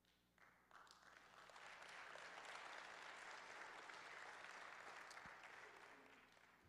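Congregation applauding, faint, building up over a second or so, holding, and dying away near the end.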